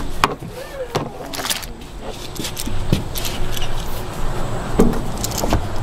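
Metal hand tools clinking and knocking against metal: scattered light clicks and taps of wrenches at work.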